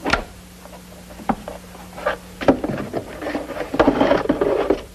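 Handling noises of a case or drawer holding jewels being opened: a few sharp wooden knocks and clicks, then a dense rattling and rubbing for about a second and a half near the end.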